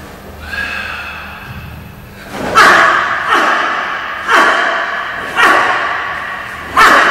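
About five sharp snaps and thuds from a karate kata's strikes and steps, roughly a second apart and starting about two seconds in, each ringing out in the echo of a large gym hall.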